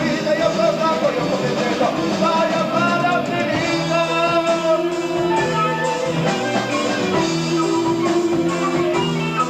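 Progressive rock band playing live, heard on an amateur tape recording with a dull top end.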